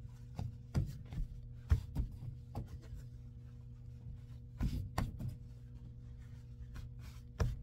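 Clothes being handled and folded: scattered soft knocks and rustles over a steady low hum of laundromat machines.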